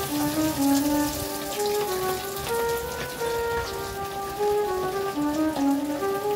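Tonkatsu (breaded pork cutlets) sizzling and crackling as they deep-fry in a pot of hot oil, a dense spattering crackle. Background music with a simple stepping melody plays over it throughout.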